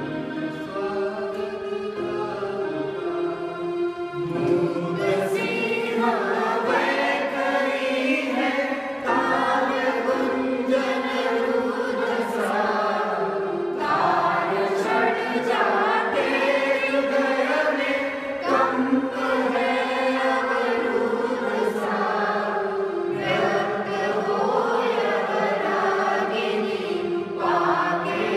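A small mixed group singing a song in unison, accompanied by an electronic keyboard. The keyboard plays alone for about the first four seconds before the voices come in.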